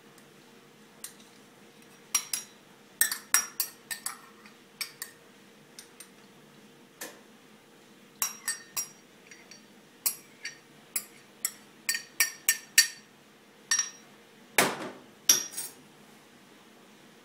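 Metal barista tools clinking and tapping: a run of irregular sharp clinks with a short metallic ring, bunched in quick groups, with one heavier knock about fourteen and a half seconds in.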